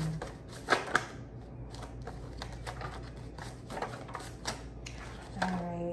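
A deck of paper cards being shuffled by hand: a run of soft flicking clicks with a few sharper snaps, the sharpest about a second in. A woman starts speaking near the end.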